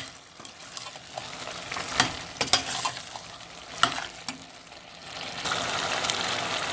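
Cauliflower and beef in masala sizzling in oil in a pot while being stirred with a spoon, which knocks against the pot several times. This is the masala being fried down (bhuna). The sizzle grows louder near the end.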